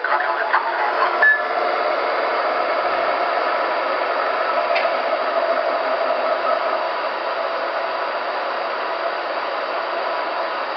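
Onboard sound systems of MTH O-gauge model subway trains idling: a steady hiss-like idle sound through the cars' small speakers, after a second or so of crew radio chatter that ends in a short beep.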